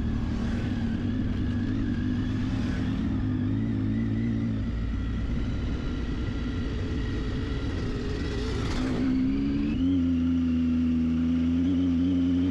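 Triumph Tiger 800XC's three-cylinder engine running under way on a dirt road, its note wavering with the throttle. There is a brief rush of noise about nine seconds in, and the engine note steps up and settles just after.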